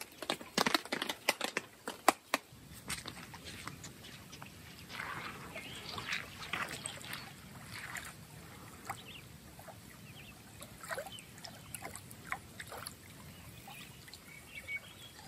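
Quiet lakeshore ambience: small waves lapping faintly against the rocky shore, with a run of sharp clicks in the first two seconds.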